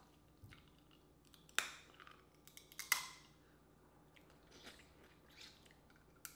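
Close-up mouth sounds of eating shellfish: a few sharp wet smacks and clicks of lips and tongue while seafood meat is sucked from the fingers and chewed, the loudest about three seconds in.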